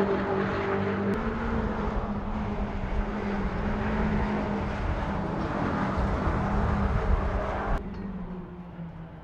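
Car engine running hard at a steady high pitch, with road and wind noise, until it cuts off suddenly about eight seconds in.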